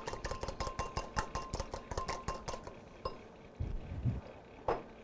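A wire whisk beating an egg in a bowl: quick, even clicking strokes against the bowl, with a faint ringing tone under them. The strokes stop about three seconds in, followed by a couple of single knocks.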